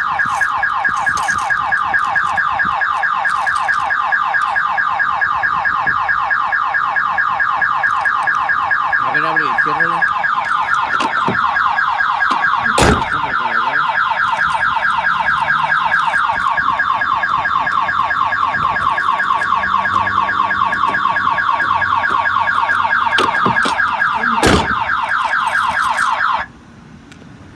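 1997 Pontiac Firebird's car alarm sounding: a loud, fast-repeating electronic siren, set off by the anti-theft system that is stopping the car from starting. Two sharp clicks come partway through, and the siren cuts off suddenly near the end.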